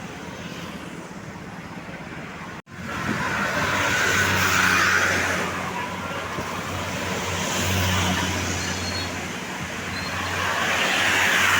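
Road traffic: vehicles running past with a deep, steady engine hum. The sound drops out briefly about two and a half seconds in, then comes back louder, swelling and easing about three times as vehicles go by.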